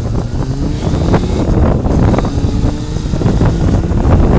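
A car being push-started, with its low mechanical rumble mixed with heavy wind and handling noise buffeting a shaking phone microphone.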